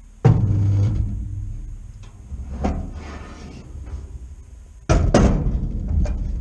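Sharp metal knocks and clanks from locking clamp pliers being handled and set on a steel body panel. There is one heavy knock at the start, a lighter click near the middle, and two sharp clanks in quick succession near the end.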